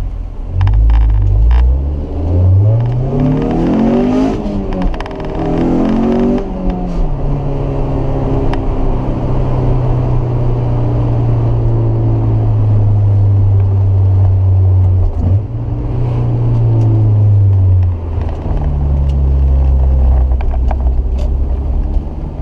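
Honda S2000's four-cylinder engine, fitted with a K&N intake and aftermarket exhaust, heard from inside the cabin while driving. It revs up hard twice in the first few seconds, then runs at steady revs, and the pitch drops to a lower steady note a few seconds before the end.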